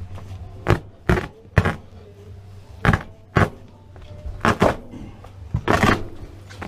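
Carpet and pad being pried and yanked up from an old camper floor: a run of about eight sharp knocks and rips at irregular intervals, the last one a longer tearing scrape near the end.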